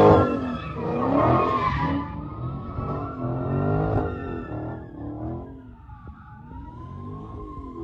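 A car doing donuts: its engine revs up and down in repeated swells about once a second while the tyres squeal steadily. The sound grows fainter in the second half.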